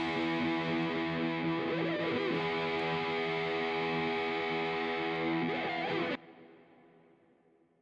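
Background music led by a guitar, holding steady chords, cuts off sharply about six seconds in and fades to near silence.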